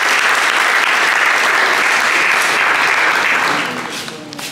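Seated audience applauding: steady clapping from a roomful of people that dies away near the end.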